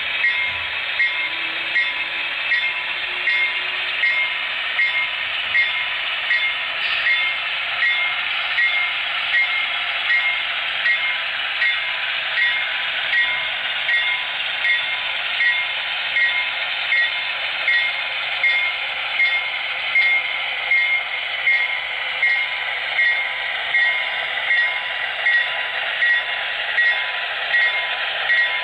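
HO-scale Broadway Limited Pennsylvania Railroad Centipede diesel locomotive models running with a long coal train: a steady rolling and running noise with a regular pulse a little faster than once a second.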